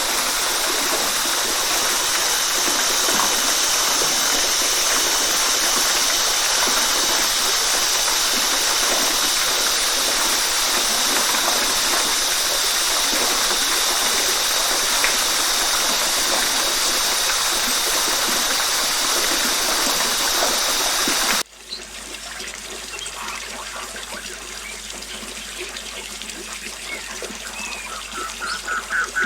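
Steady rush of a waterfall. About two-thirds of the way in it cuts abruptly to a quieter trickling stream, with a few high chirps near the end.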